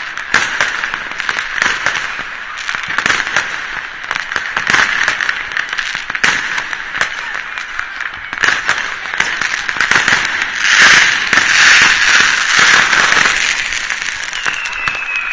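Fireworks and firecrackers going off across a city: a continuous crackle dense with sharp pops and bangs, louder for a couple of seconds past the middle. Near the end, a falling whistle begins.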